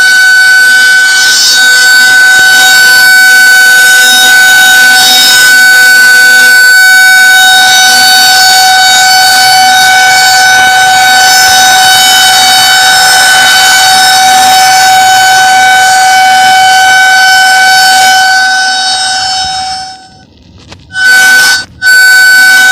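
Tornado warning siren sound played from a siren app: a loud, steady note held without rising or falling. About twenty seconds in it drops away, then comes back as two short blasts and starts again.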